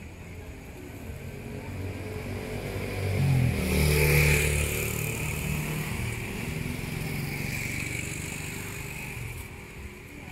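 A motor vehicle passing along the street, its engine and tyres growing louder to a peak about four seconds in, then fading away slowly.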